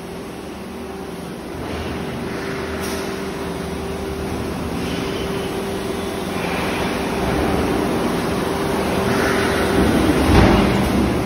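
Vacuum lifter's pump and factory machinery running with a steady hum and hiss that grows louder. A short thump about ten seconds in is the loudest moment.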